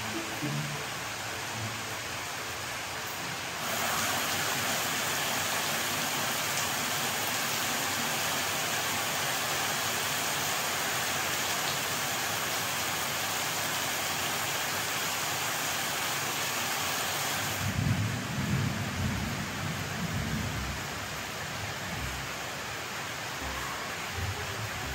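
A steady, even hiss that grows louder about four seconds in and drops back at about seventeen seconds, followed by a few low bumps.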